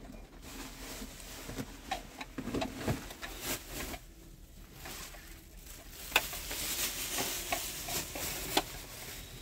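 Food being stirred in a pan, with scattered clinks and scrapes of the utensil and a sizzling hiss that swells about six seconds in.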